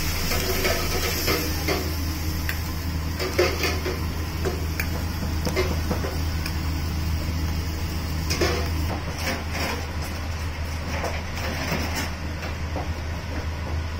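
Gas wok burner running with a steady low roar while vegetables and broth simmer in a carbon-steel wok, the fizzing fading after about nine seconds. Scattered clinks and knocks of kitchen utensils and pans sound over it.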